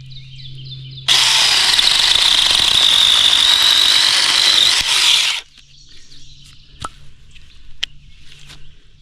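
RLSOO battery-powered mini chainsaw running, then about a second in its chain bites into a piece of firewood: about four seconds of loud sawing with a high whine, which stops suddenly. Faint ticks follow.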